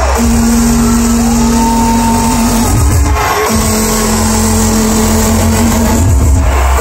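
Loud electronic bass music (dubstep) over a festival sound system, with heavy, overdriven bass that a phone microphone near the front rail can barely handle. A held bass note breaks off about every three seconds for a short sweep, then comes back in.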